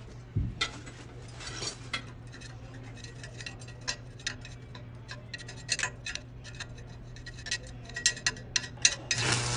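Irregular light metallic clicks and taps, like hand tools and metal fittings being worked on during an exhaust pipe installation, over a steady low hum.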